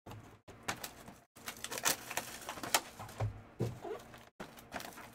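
Hands handling and sliding sealed cardboard trading-card boxes on a table: a string of sharp taps, knocks and scrapes, the loudest about two and three seconds in.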